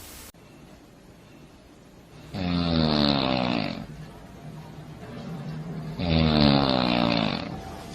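A person snoring loudly: two long snores, each dropping in pitch as it goes, about three and a half seconds apart.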